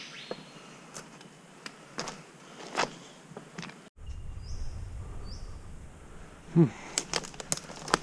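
Scattered clicks and knocks of footsteps and gear on creek rocks, with a couple of short bird chirps in the second half. The loudest sound is a single knock with a brief falling tone about six and a half seconds in.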